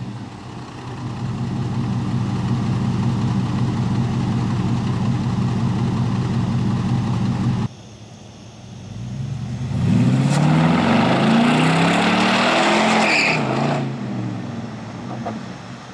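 2004 Pontiac GTO's 5.7 L LS1 V8 running steadily through its exhaust. After a sudden cut, the car accelerates hard away, its engine pitch rising in several sweeps through the gears, then fades into the distance.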